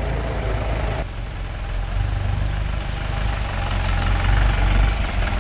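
Mahindra jeep engine running steadily at low revs as the jeep crawls along a dirt forest track: a steady low rumble.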